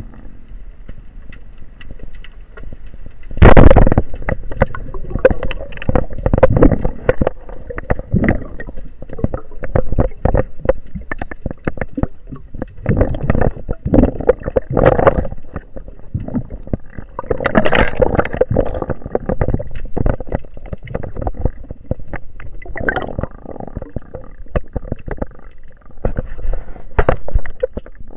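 Heard underwater: a loud sharp crack about three and a half seconds in, the speargun firing, then a long irregular run of clicks, knocks and scrapes with gurgling water as the speared grey mullet struggles on the shaft line.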